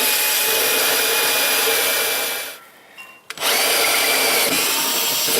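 Electric drill turning a DeWalt door lock jig's cutter as it bores into a wooden door, with a steady motor whine. It stops a little after two seconds and starts again about a second later.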